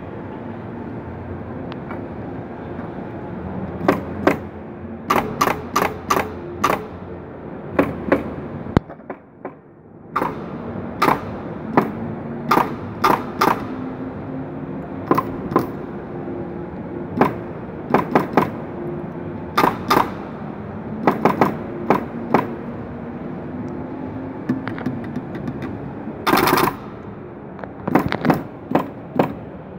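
Paddle-shift gear-change rig being cycled through the gears: sharp mechanical clacks from the paddles and shift mechanism, often in quick runs of two to four, over steady background hall noise. Near the end there is one half-second rush of noise.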